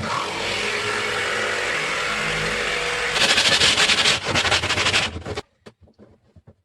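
Handheld electric power tool running while working wood, with a motor hum. It turns to a louder, rapid rattling over about its last two seconds, then stops abruptly about five and a half seconds in, followed by a few light clicks.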